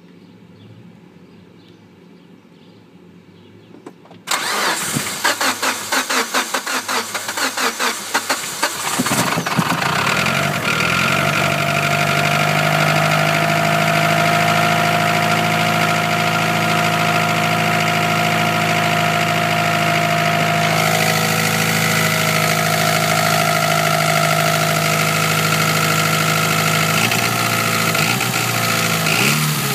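Mitsubishi Lancer Evolution IX's turbocharged 2.0-litre 4G63 four-cylinder being started: the starter cranks for about four seconds before the engine catches, then it settles into a steady idle. The idle carries a ticking that the owner cannot identify.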